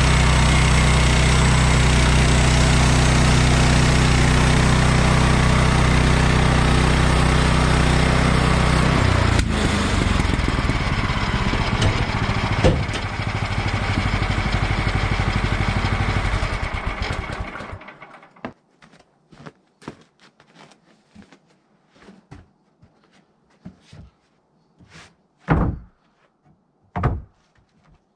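Portable bandsaw sawmill's gasoline engine running steadily at speed just after being started, changing about nine seconds in to a rougher, less even note, then dying away about eighteen seconds in. Scattered light clicks follow, with two sharper knocks near the end.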